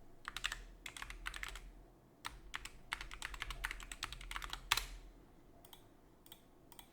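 Typing on a computer keyboard: a quick, uneven run of key presses for about four and a half seconds, then a few scattered key clicks, as login details are entered.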